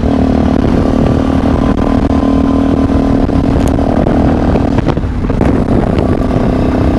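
Sinnis Terrain 125 motorcycle with a stainless Torro exhaust running steadily on the road, its engine note dropping away briefly about five seconds in before picking up again.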